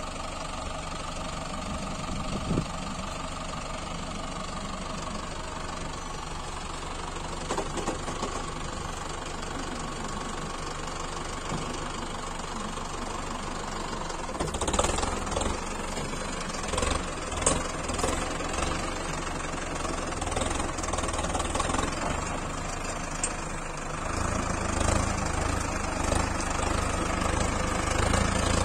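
Mahindra Arjun 605 4×4 tractor's diesel engine running with a knocking clatter as it pulls a trailer loaded with sand through loose sand. There are a few knocks around the middle, and near the end the engine grows louder and deeper under the load.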